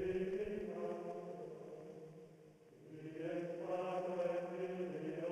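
Chanted vocal music with long held notes; one phrase fades out about two and a half seconds in and a new one swells up about half a second later.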